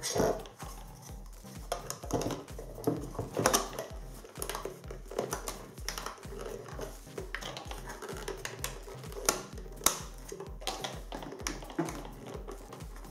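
Sharp plastic clicks and knocks of a Turnigy 9X radio transmitter being handled as its battery cover is snapped back on, over background music with a steady beat.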